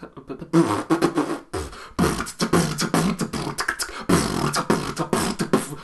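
A man making a rapid string of non-word vocal noises: short, choppy bursts of voice mixed with breathy mouth sounds. They stop near the end.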